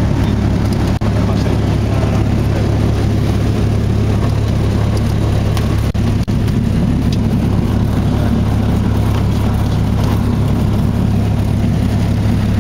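Cessna 172's piston engine and propeller running steadily with a constant low drone. The sound drops out for an instant about a second in and again about six seconds in.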